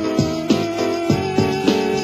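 Background music, with pitched notes starting at a steady pace.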